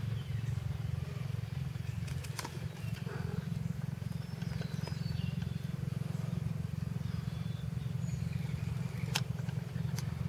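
A motor running steadily with a low drone, with a couple of sharp clicks.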